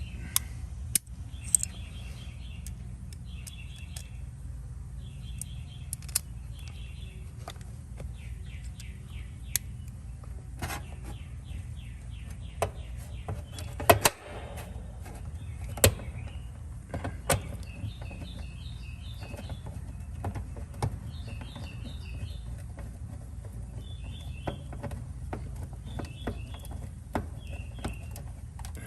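A songbird nearby singing short, repeated chirping phrases again and again, over a steady low hum. Scattered sharp clicks and knocks come from hand work on the unit, the loudest about halfway through.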